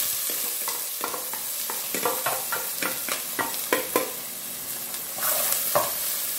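Chopped onion, green onion and pimenta-de-cheiro peppers sizzling as they fry in hot oil in an aluminium pot. A metal spoon clinks and scrapes against the pot as they are stirred, and the sizzle grows louder about five seconds in.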